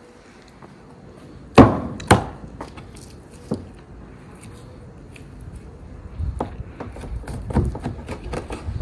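Raw wild boar meat being chopped on a cutting board: two sharp, loud chops about half a second apart, a single lighter one a second or so later, then a quicker run of lighter chops near the end.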